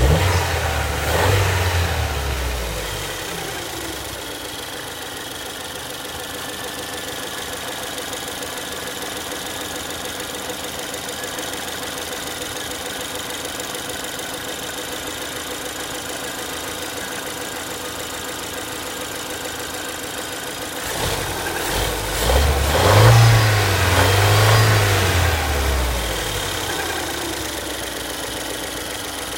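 Ford Kuga 1.6 turbo petrol engine running with a steady whine from its 6F35 six-speed automatic gearbox. The engine is revved up and back down near the start, and again for longer about two-thirds of the way through.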